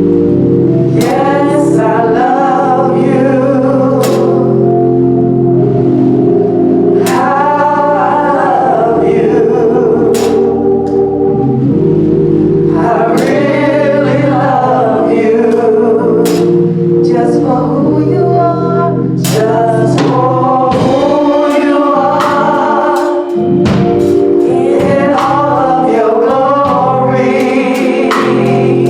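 Gospel choir singing a slow worship song over sustained organ chords, with sharp percussion hits at intervals.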